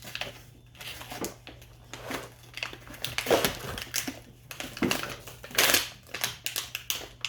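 Plastic crinkling, crunching and clicking as a plastic glitter-glue bottle and its packaging are handled and worked open, in a series of irregular sharp rustles.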